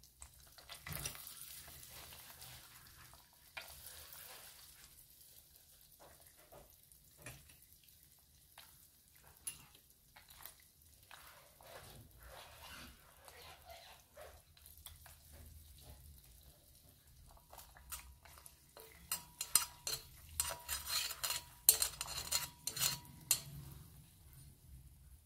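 A metal spoon stirs and beats a raw egg in a stainless steel bowl, clinking against the sides. The clinking is fastest and loudest near the end. Early on, a shaker rattles briefly as seasoning is shaken onto the egg.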